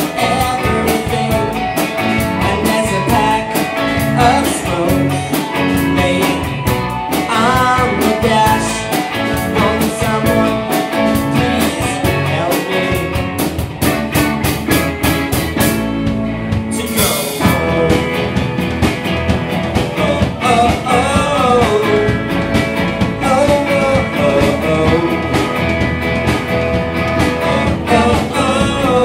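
Live rock band playing a song with singing, dense and steady throughout, with a cymbal-like crash about seventeen seconds in.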